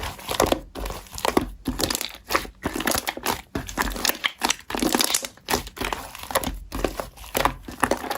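Slime being squeezed and kneaded by hand, making dense, irregular crackling and popping.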